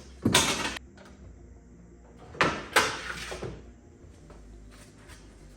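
Three short sliding scrapes, each about half a second: one just after the start and two close together about two and a half seconds in.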